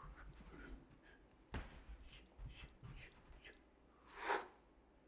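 Quiet room during a spoken-word pause: a faint click about a second and a half in, then a single audible intake of breath a little after four seconds, just before the speaker resumes.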